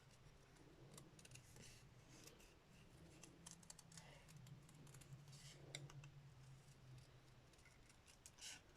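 Faint, irregular snips of small scissors cutting round a shape in cardstock, over a faint low hum.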